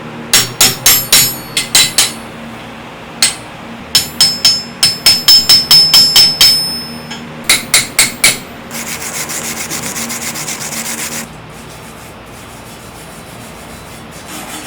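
Hand tools at work: runs of sharp hammer taps, about three or four a second, some with a high metallic ring, then a few seconds of rasping strokes.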